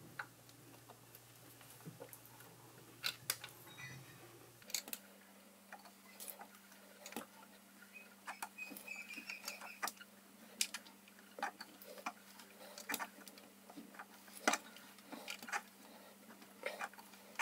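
Faint, irregular metallic clicks and ticks of a hand-turned tap and adjustable wrench working a thread into a steel die blank held in a lathe chuck, over a low steady hum. About five seconds in the hum jumps up in pitch and the clicks come faster, as the sound is played at double speed.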